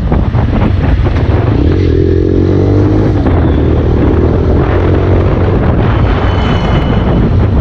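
Taro GP One 150cc motorcycle engine running while riding, under heavy wind noise on the microphone. The engine note comes through most clearly about two to three seconds in.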